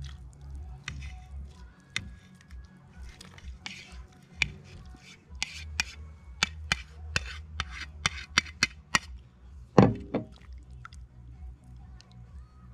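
Plastic spoon scraping and tapping shredded chicken off a plastic plate into a stainless steel pot: a run of irregular sharp clicks and knocks, with one louder knock toward the end.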